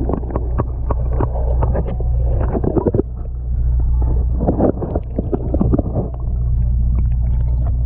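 Underwater sound: a steady low hum of the boat's machinery carried through the water, with clusters of clicks, knocks and bubbling as the water moves around the camera.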